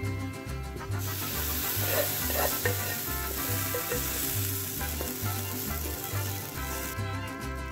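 Hot fried onions in oil sizzling as they are spooned from a frying pan into a pot of lentil soup, with a wooden spoon scraping the pan a few times; the sizzle starts about a second in and cuts off sharply near the end. Background music with a steady beat plays under it.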